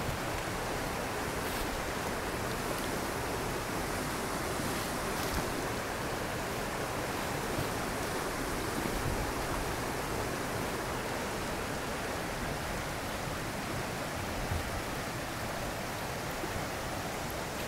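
Swollen, fast-flowing muddy river rushing past its bank in flood: a steady, even rush of water.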